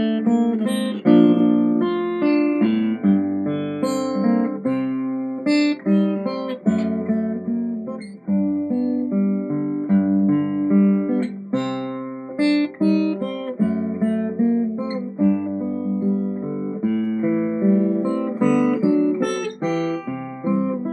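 A freshly restored 1907 Martin 00 acoustic guitar, mahogany back and sides with a spruce top, being played: a continuous run of plucked single notes and chords, several attacks a second, each ringing out.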